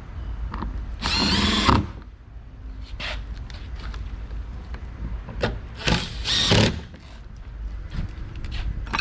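Power drill run in short bursts while reassembling the door: one spin of nearly a second about a second in, then two quick ones near six seconds, with light clicks of handling between.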